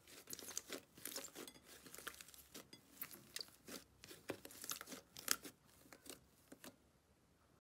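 Fluffy slime squeezed and kneaded by hand, making irregular crackling, crunchy pops that stop abruptly near the end.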